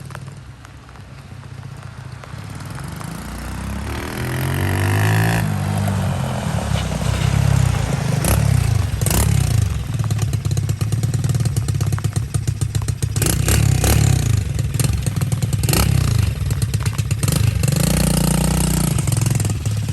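Lifan 125 single-cylinder four-stroke engine in a Honda SL70 minibike being ridden. It grows louder over the first few seconds, then revs up and down again and again.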